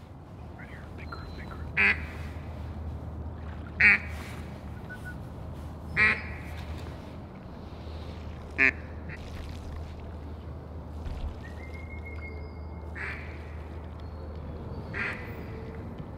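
Duck quacks: four loud single quacks about two seconds apart, then three fainter ones spaced further apart near the end.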